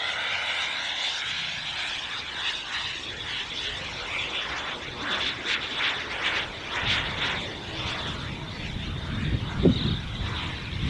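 JetCat P20SX miniature turbine of a model jet whining high as the plane flies past, its pitch sliding down in the first second or so. From about two-thirds through, a low rumbling noise joins it, with a sharp thump near the end.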